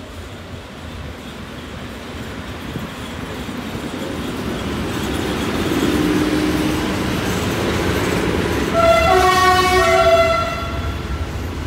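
ET22 electric freight locomotive and its long train of container wagons approaching and passing close by, the rumble of wheels on rail growing steadily louder. About nine seconds in a two-tone train horn sounds for about a second and a half.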